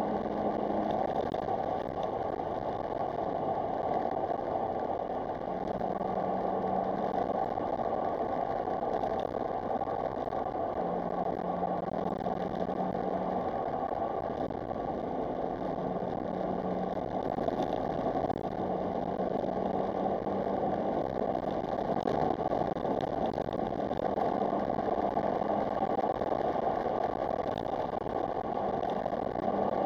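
Smart Roadster Brabus's small three-cylinder turbo engine running while the car drives, heard as a steady wash of engine and road noise with a low hum that fades in and out every few seconds.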